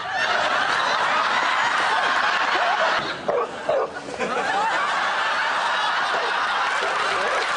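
Studio audience laughing loudly and steadily, with a short lull about three seconds in before the laughter picks up again.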